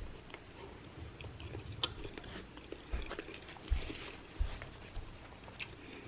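Close-up chewing of a shrimp taco, with irregular small wet clicks and a few low thuds.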